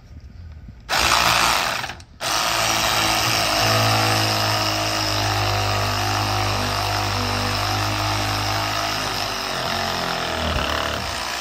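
Handheld power tool running on the sway bar fasteners: a short burst about a second in, a brief stop, then a long steady run of about eight seconds that winds down near the end.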